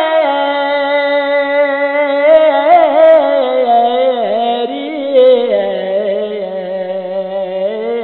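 A voice singing a Balti devotional qasida, drawing out long held notes with wavering, ornamented turns.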